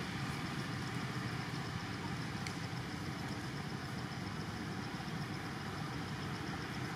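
Steady low rumble, like an engine idling, with a faint high pulsing repeating a few times a second.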